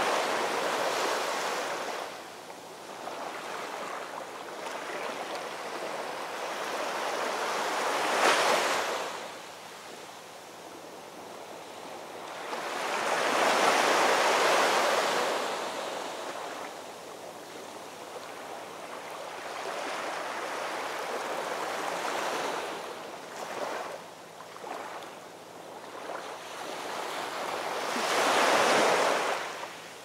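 Small waves breaking and washing up a sandy beach and around rocks, swelling and falling back roughly every six seconds, the biggest surges near the start, midway and near the end.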